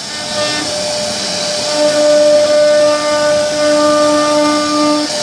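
CNC router spindle running with a steady high whine while its bit carves a relief pattern into a wooden door panel, with a hiss from the cut. A lower tone comes and goes underneath.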